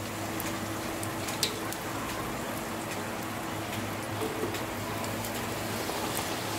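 A kachori deep-frying in hot oil, pressed under a wooden spatula: a steady sizzle with scattered crackles and one sharper crackle about a second and a half in. The kachori has fully puffed up in the oil.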